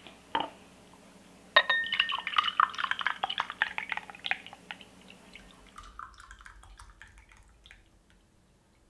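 Mango milk poured from a glass bottle into a glass tumbler: a knock just after the start, a ringing glass clink about a second and a half in, then several seconds of splashing liquid that thins out and fades near the end.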